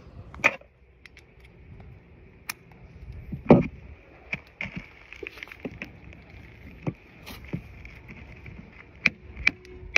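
Scattered metallic clinks and knocks of a wrench and socket working a through-hull bolt that is too tight to unscrew from its nut. The loudest knock comes about three and a half seconds in.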